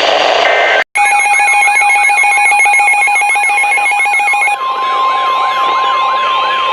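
Emergency alert signalling: a short data-tone burst, a brief drop-out, then a rapidly chopped electronic alarm under repeating siren-like wails. About four and a half seconds in it changes to a steady, unbroken weather radio alert tone with the wailing sweeps still going over it.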